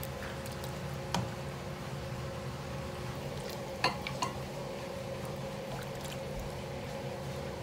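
Metal ladle scooping and pouring soup broth in a stainless steel pot, with sharp clinks of the ladle against the pot about a second in and a quick cluster of them around four seconds in, over a steady low hum.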